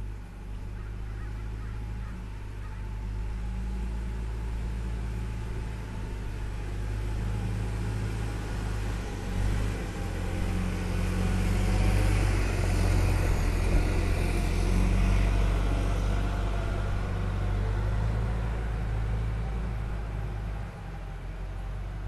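A motor vehicle's engine rumbling steadily, growing louder about ten seconds in with a rising hiss above it, then easing off near the end.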